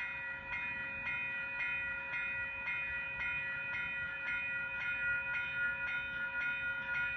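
Railway level-crossing bell ringing steadily, struck about twice a second, warning of an approaching train.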